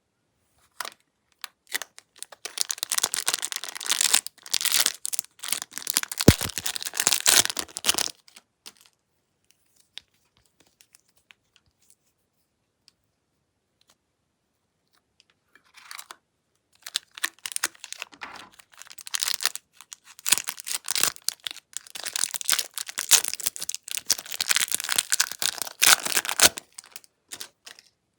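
Glossy slime being squeezed and pressed by hand, giving dense crackling and popping clicks. It plays in two long stretches with silence between them.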